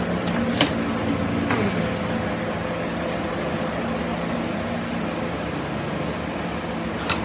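Steady mechanical hum and hiss of workshop background noise, with a sharp click about half a second in and another near the end.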